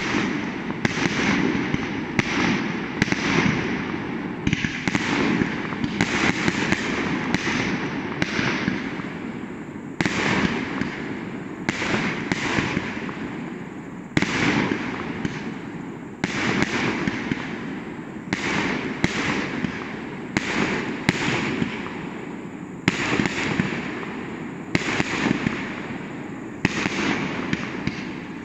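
Aerial firework shells bursting in a continuous barrage: sharp bangs every second or two, each trailing off in a long echo through the valley.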